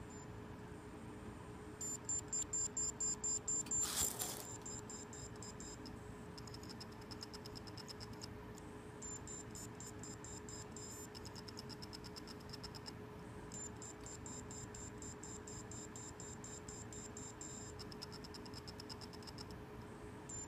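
Western Digital external hard drive beeping after a drop: high-pitched pulses, several a second, in runs of a few seconds with short gaps. One sharp click comes about four seconds in. Such beeping while the drive goes unrecognised is typical of a drive whose platters cannot spin up, from stuck heads or a damaged spindle motor.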